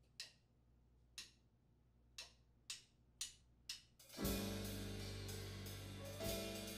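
Drumsticks clicked together to count off the tempo: two slow clicks, then four quicker ones. About four seconds in, a jazz quartet of piano, double bass, drum kit and saxophone comes in together.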